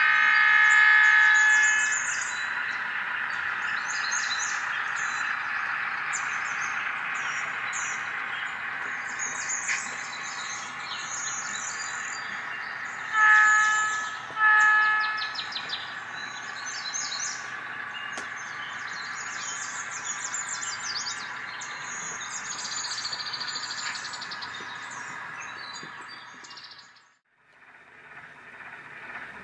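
Diesel locomotive horn sounding at the start, then the engine running steadily as the log train passes, with two short horn toots about halfway through. Birds chirp throughout, and the sound drops out briefly near the end.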